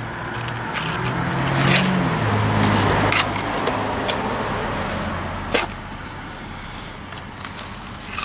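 A motor vehicle driving past, its engine hum and road noise swelling over the first couple of seconds and fading away. A few sharp scrapes and knocks come from cement being pressed into a block foundation by hand.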